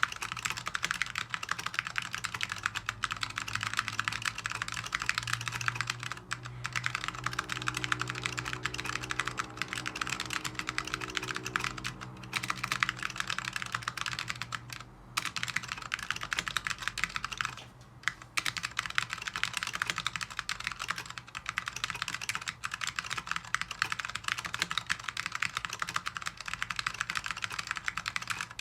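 Orion V3 mechanical keyboard with tactile Alps SKCM Brown switches on an FR4 plate being typed on continuously, a fast, dense run of key presses with two brief pauses, about 15 and 18 seconds in.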